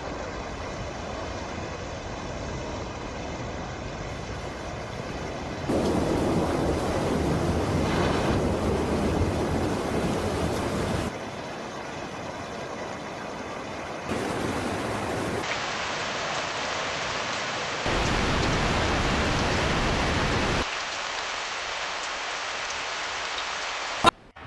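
Steady rushing noise of heavy rain and flowing water, jumping abruptly up and down in level several times. A brief sharp crack comes near the end.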